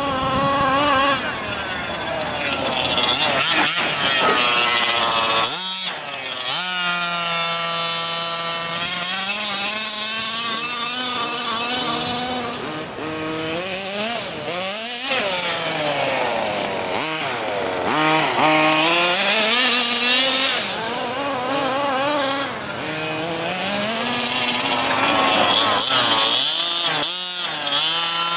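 Gas-powered 1/5-scale RC buggy's two-stroke engine revving up and down as it is driven, its pitch rising and falling with the throttle. It drops off briefly about six, fifteen and twenty-seven seconds in.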